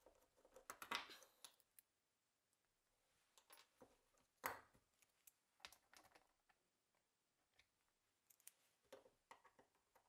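Faint clicks and scrapes of a screwdriver and the Colt Lightning's steel trigger-guard assembly being worked and shifted on a wooden workbench, with a sharper metal click about a second in and another near the middle.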